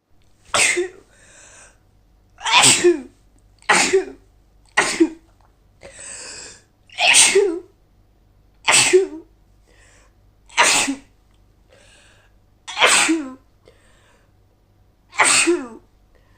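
A woman with a cold sneezing over and over: nine loud sneezes in quick succession, one every one to two seconds, with fainter breaths drawn in between.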